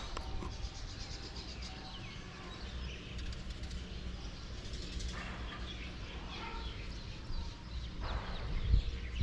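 Birds chirping and calling here and there, over a steady low rumble.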